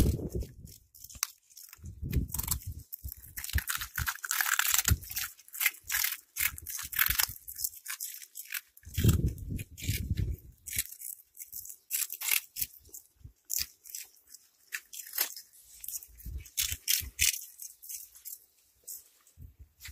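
Cats crunching and chewing small puffed snack balls, a dense, irregular run of crisp cracks and crunches, with a couple of dull low bumps about two and nine seconds in.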